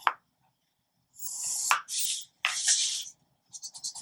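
Pencil scratching along a ruler on paper: a few separate drawn strokes with small clicks, then quick back-and-forth rubbing near the end.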